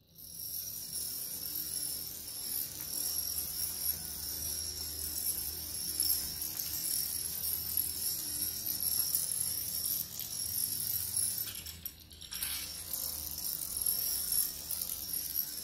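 Small plastic dominoes toppling one after another in a long chain across a glass table top, a rapid continuous clatter of clicks. It thins out briefly about twelve seconds in.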